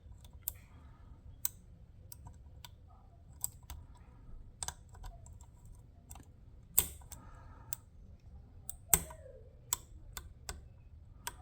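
Lock pick and tension wrench clicking irregularly in the keyway of a Master Lock 410 lockout padlock as its pins are picked, with the loudest clicks about seven and nine seconds in.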